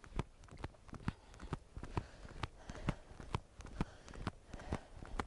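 Footfalls of a person running in place on the balls of her feet on dry grass: a steady rhythm of sharp thuds, about two a second.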